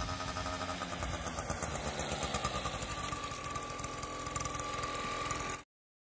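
Wangye CBC 50 scooter's small two-stroke engine running as the scooter rides along, with a steady high whine coming in about halfway. The sound cuts off suddenly near the end.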